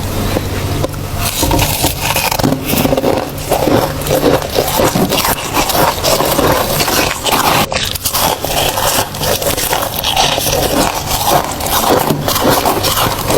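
Person biting and chewing humidifier ice: a dense, continuous run of crackly crunches.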